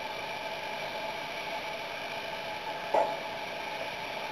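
Quiet open-air ballfield ambience: a steady low hiss with faint steady tones, and a short faint sound about three seconds in.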